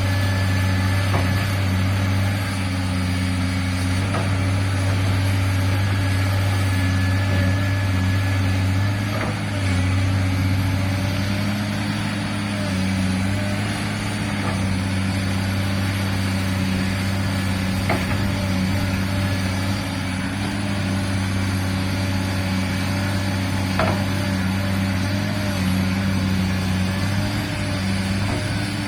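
Komatsu PC200-8 excavator's diesel engine running steadily, its pitch shifting slightly a few times as the load changes, with a few faint knocks.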